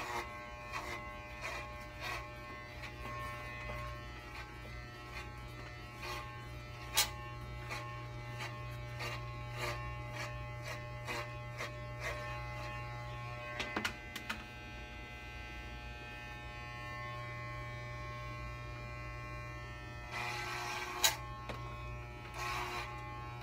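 Corded electric hair clippers running with a steady buzz as they cut bulk out of a short synthetic wig, with scattered light clicks. A louder, rougher stretch comes about twenty seconds in.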